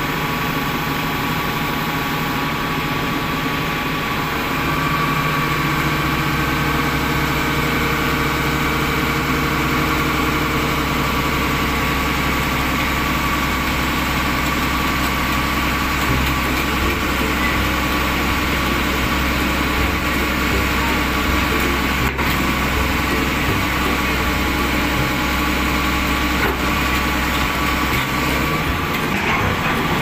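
Heavy diesel engine idling steadily. It gets a little louder about five seconds in and eases back near the end.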